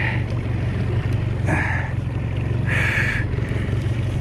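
A small boat's motor running steadily at low speed, with three short buzzing bursts over it, about a second and a half apart.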